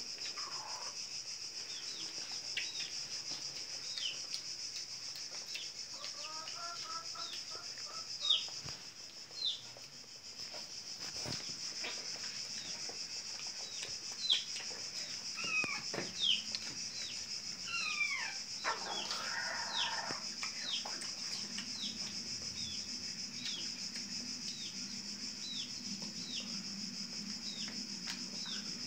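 A bird chirping over and over in short falling notes, about one a second, over a steady high-pitched hiss.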